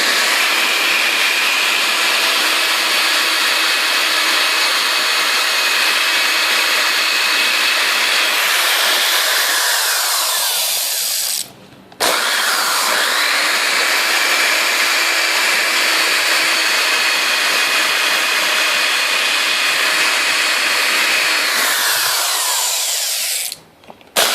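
Electric drill boring into steel, with a bit the user calls quite dull, running steadily in two long stretches. The motor winds down and stops about halfway through, starts again straight away and winds down once more near the end.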